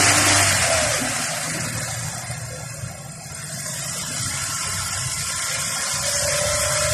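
Kia Rio's engine running with the hood open; its sound eases off over the first three seconds, then builds again, with a slowly rising whine coming in near the end.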